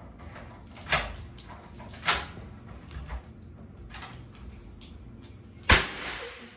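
Four sharp knocks about a second apart, then one loud sharp bang with a short hiss after it near the end, at a front door.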